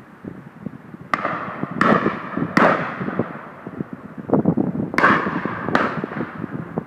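Several shotgun shots from guns on a driven game shoot, about five clear reports in two groups, each trailing off in an echo, with fainter distant shots between them.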